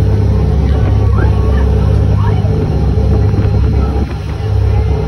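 A boat's engine running steadily under way: a loud low drone that dips briefly about four seconds in.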